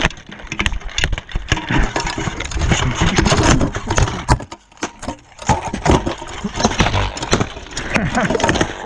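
Sword-and-shield sparring: a rapid, irregular run of knocks, clatter and scraping from blades, shields and armour, with rumbling rubbing close to the fighter-worn microphone. There is a brief lull a little past halfway.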